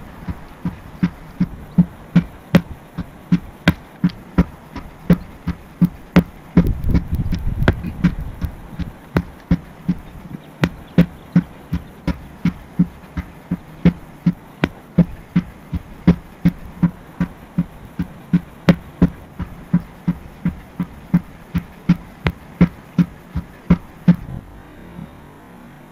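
Sledgehammer striking a rubber tractor tire over and over: dull thuds at a steady rhythm that stop shortly before the end.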